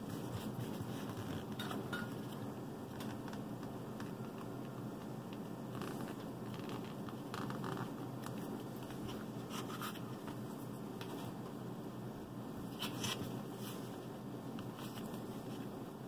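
Intermittent short scrapes and scratches of a hydraulic cylinder seal being bent and worked by hand into the gland's groove, over a steady low hum.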